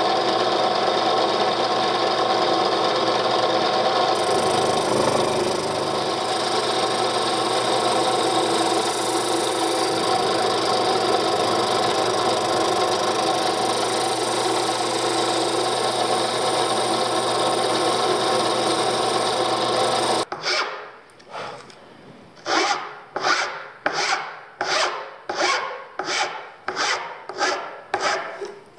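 Drill press running steadily with a sanding drum in its chuck, shaping Baltic birch plywood slingshot blanks. About twenty seconds in it cuts off, and a hand file rasps along a plywood edge in about fourteen even strokes, filing a 45-degree bevel.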